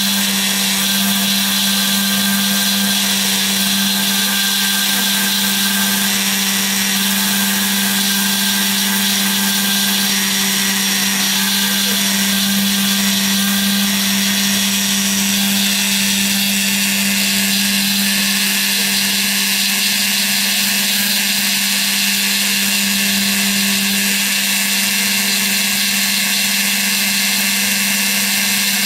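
Small CNC router's spindle running steadily as its end mill cuts a pocket in a foam block, a constant low tone with hiss above it. Fainter higher tones come and go every few seconds as the machine's axes move.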